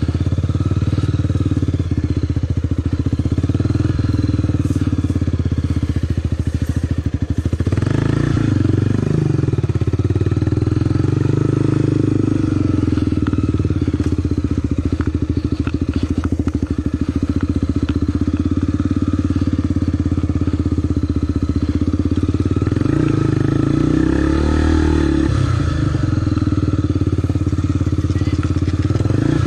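Honda XR 250 Tornado's single-cylinder four-stroke engine running under load on a trail climb. The revs rise and fall about eight seconds in and again around twenty-four seconds in.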